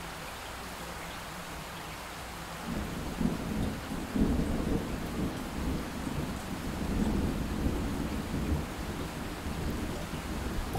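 Steady rain with a long, rolling rumble of thunder that builds about three seconds in and keeps going.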